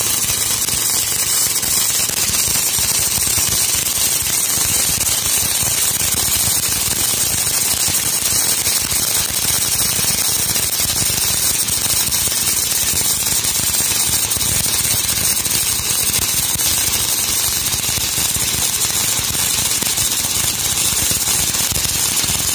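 Electric welding arc on a small pipe, crackling and hissing steadily in one unbroken run with sparks spattering.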